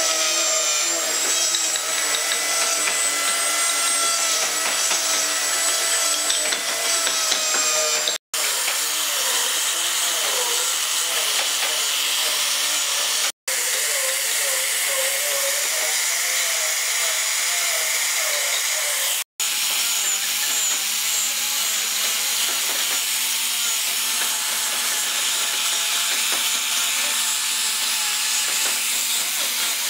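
Electric power tools working solid wood, in clips broken by three brief cuts. First comes the steady high-pitched whine of a small rotary carving tool, then an angle grinder with a sanding disc runs against the wood with a rough, wavering grinding sound over a steady motor hum.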